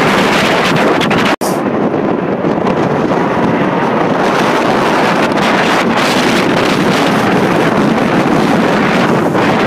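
Loud, steady wind buffeting the phone's microphone, with a sound gap of a split second about a second and a half in.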